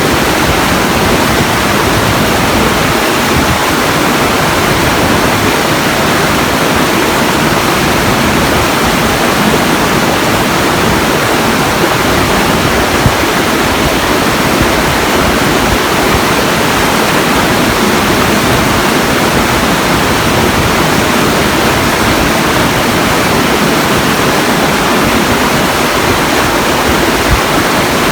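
Steady rushing water, loud and unchanging.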